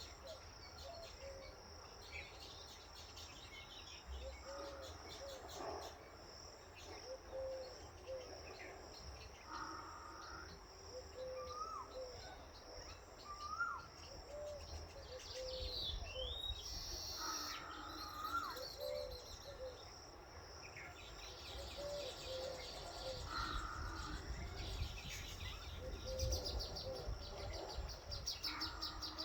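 Several birds calling in a tree: a low call repeated many times, short rising whistles and chirps, over a steady high pulsing trill.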